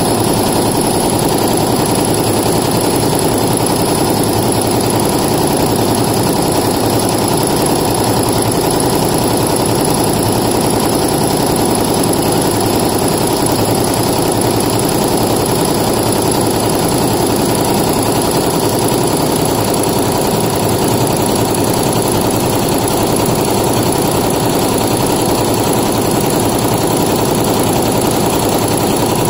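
Multi-needle embroidery machine stitching a logo at speed: a rapid, steady clatter of needle strokes that does not let up.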